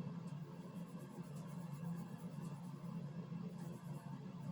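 Fingers rubbing oil into the scalp and through loosened hair, a faint irregular scratching over a steady low hum.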